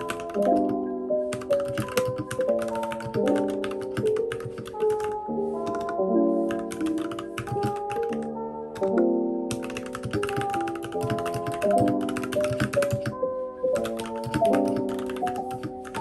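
Background music with a melody of sustained notes, over the rapid clicking of typing on a compact mechanical keyboard; the typing pauses briefly several times.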